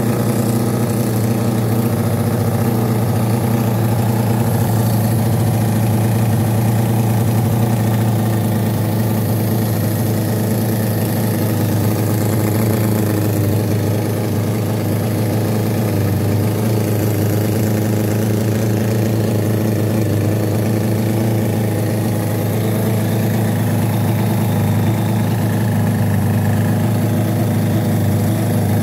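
Cison FL4-175 four-cylinder flathead model engine running steadily on nitro-methanol fuel with glow plugs, an even, unbroken drone, on its first run.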